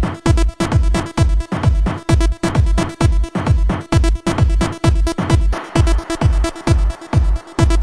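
Electronic dance music with a heavy, steady kick drum at about two beats a second.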